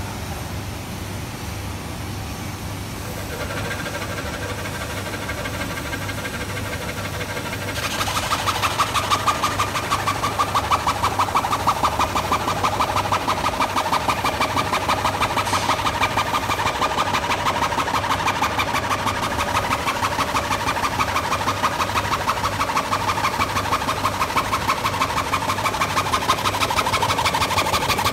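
Homemade band saw machine running with a steady motor hum. About eight seconds in it turns to a louder, fast, even chatter as the blade cuts through the stacked corrugated cardboard.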